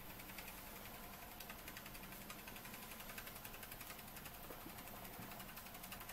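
Doll 505/4 overtype model steam engine running very quietly under steam, its twin flywheels turning with a faint, fast, even ticking.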